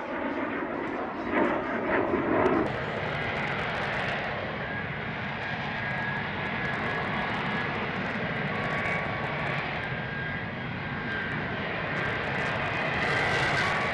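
F-35B hovering in short-takeoff/vertical-landing mode: its F135 jet engine and shaft-driven lift fan make a steady jet roar with thin high whining tones over it. The roar is louder and rougher about two seconds in.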